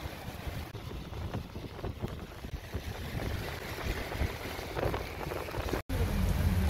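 Steady rain with wind buffeting the microphone as a low rumble. The sound cuts out for an instant near the end and comes back louder.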